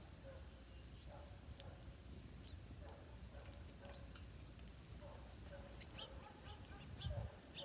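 Birds at a feeder calling faintly, short low calls repeating about once a second, with scattered small clicks and a low thump near the end.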